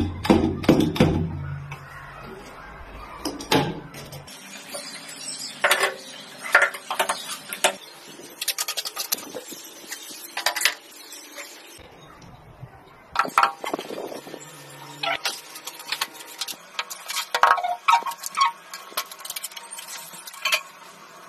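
Ceramic tiles and hand tools knocking and clinking irregularly during wall tiling, with a low hum for the first few seconds.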